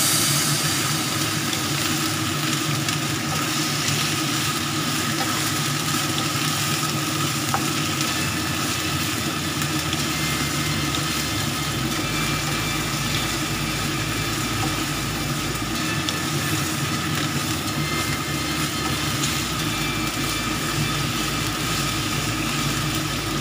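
Chicken pieces and ginger sizzling in a hot wok as they are stir-fried with a wooden spatula, with a steady hum underneath.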